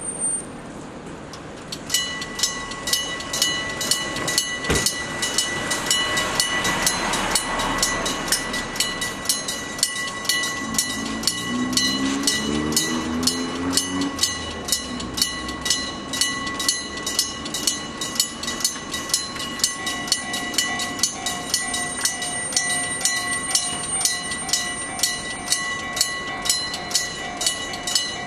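A mechanical electric-bell level-crossing signal starts ringing about two seconds in, its bell struck in a steady rapid rhythm and ringing on between strokes. About two-thirds of the way through, a second crossing signal's lower, pulsing electronic tone joins it.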